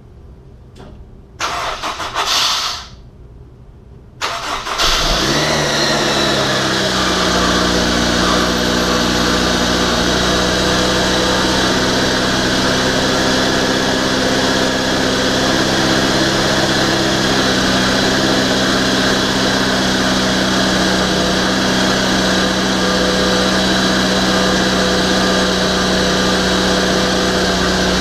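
Turbocharged Honda S2000 four-cylinder engine at its first start-up. There is a short burst of noise about a second and a half in, then a few seconds later the engine cranks, catches and settles into a steady idle that drops slightly in pitch as it settles.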